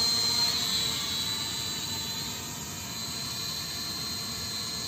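E88 toy camera quadcopter's motors and propellers whining steadily as it flies, a high-pitched hum that grows a little quieter over the first couple of seconds and then holds.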